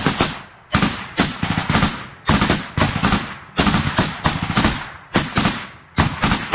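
Automatic rifle fired right at the microphone in a dozen or so short bursts of a few rounds each, each burst echoing briefly before the next.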